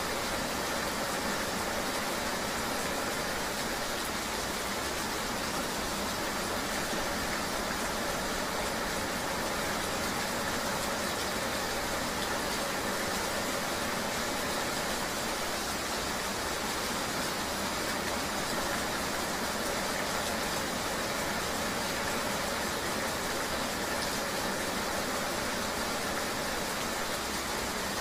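Steady ambience of riding a motor vehicle in the rain: an engine running under an even hiss of rain and road noise, with no separate events.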